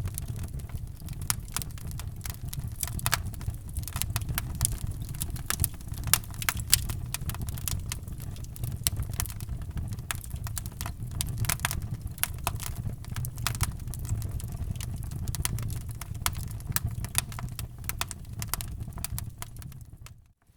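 Wood fire in a fireplace crackling, with irregular sharp pops and snaps over a low steady rumble of the flames. The sound cuts out briefly near the end.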